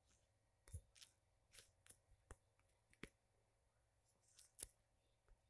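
Near silence with faint, scattered clicks and rustles: fingers tapping and handling a phone's touchscreen, the loudest taps about a second in and near the end.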